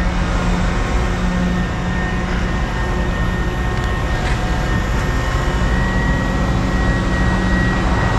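Large mobile crane's diesel engine running steadily, a low drone with a thin high whine held over it.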